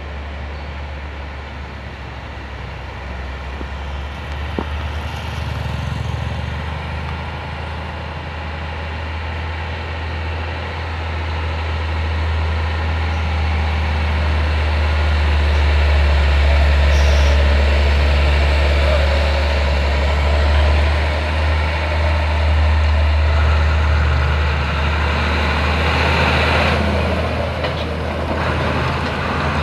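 Heavy truck's diesel engine working past on a steep bend, a deep steady drone that grows louder toward the middle and then eases off. A louder rush of noise comes in near the end.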